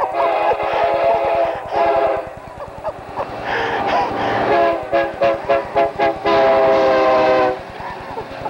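Burlington Northern diesel locomotive 9229's air horn played as a horn show. It gives a few longer blasts, then a quick run of about six short toots, then one long blast that ends about a second before the end.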